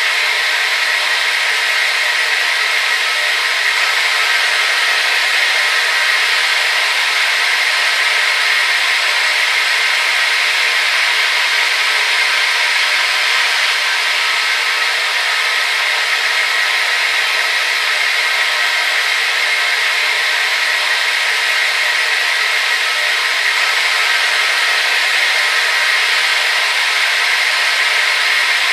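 Hair dryer running steadily: an even, unbroken blowing hiss with a faint motor whine, strongest in the upper middle.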